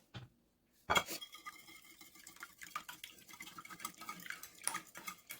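A utensil knocking and clicking against a bowl of egg-and-spice batter: one sharp knock about a second in, then a run of light clicks and scrapes.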